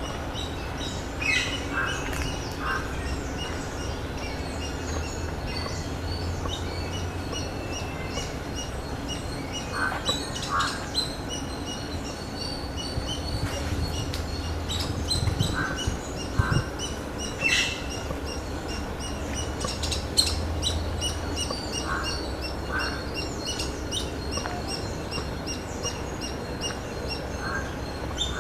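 Many birds chirping and calling at once, with a short two-note call recurring every few seconds, over a low steady rumble.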